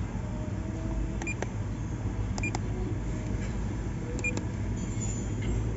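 Diagnostic scan tool beeping with short high beeps and clicks as its buttons are pressed to run a quick scan, three times, over a steady low hum.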